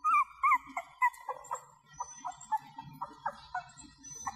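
Cavalier King Charles Spaniel puppies, 25 days old, whimpering: a rapid string of short, high whines and squeaks, some bending up and down in pitch.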